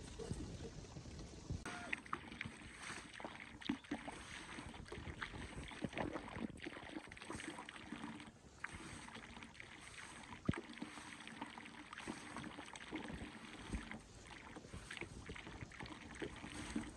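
Pond water splashing and sloshing, with scattered small clicks and knocks.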